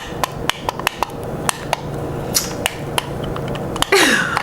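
Irregular sharp plastic clicks and taps, several a second, as toy groceries and a toy hand scanner are handled and pressed against a toy cash register. The scanner gives no beep: it is switched off.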